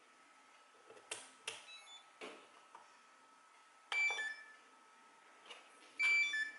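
A few soft handling clicks, then two short electronic beep sequences at several pitches, about two seconds apart, over a faint steady high whine.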